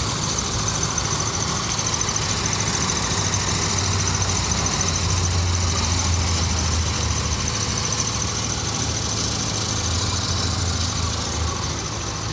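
A motor vehicle engine idling steadily, a low continuous hum with a thin high whine above it.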